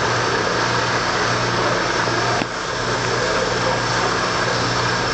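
MH-2000-6SS stainless steel stone grinder running steadily: an electric motor hum under the rushing noise of the grindstones milling almonds into a flowing paste. The level dips briefly about two and a half seconds in.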